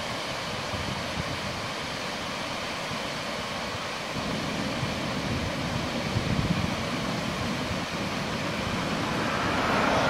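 Water spilling over a weir across a stream, a steady rushing noise, with a low rumble added from about four seconds in and the rush growing louder near the end.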